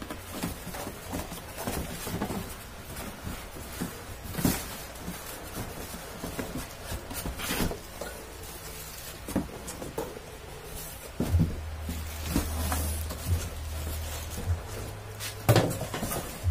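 Corrugated cardboard packaging being handled: irregular scraping, rustling and knocking as the box's cardboard inserts are pulled apart and the electric fan's plastic motor housing is lifted out. The loudest knocks come about four and a half, seven and a half and fifteen and a half seconds in, and a low steady rumble joins about eleven seconds in.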